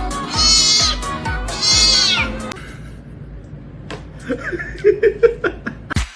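A cat meowing twice, two long drawn-out meows in the first two and a half seconds, over background music with a steady beat; the rest is quieter, with faint shorter sounds and clicks.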